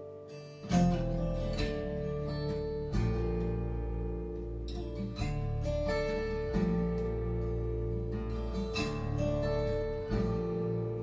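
Instrumental song passage with strummed acoustic guitar, played back through hi-fi speakers; a deep bass comes in under it less than a second in, with further strummed chords and notes throughout.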